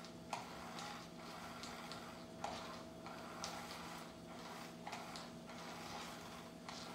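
Battery-powered motorised cat toy running: its small motor hums steadily under the fabric cover as the hidden wand moves, with light irregular ticks about once a second.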